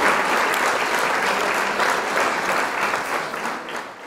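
Applause from a crowd: dense clapping that fades out near the end.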